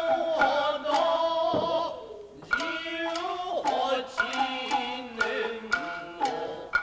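Nagauta music for classical Japanese dance: a drawn-out sung vocal line with vibrato over sharply plucked shamisen notes, easing off briefly about two seconds in.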